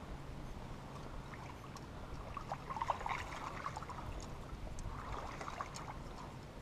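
Water splashing in two bursts, about three seconds in and again near the end: a hooked bass thrashing at the surface as it is reeled up to the kayak.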